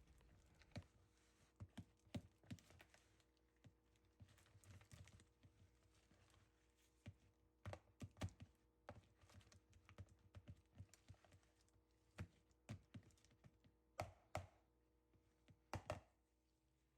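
Near silence, broken by faint, irregular small clicks and taps, with two slightly louder knocks near the end.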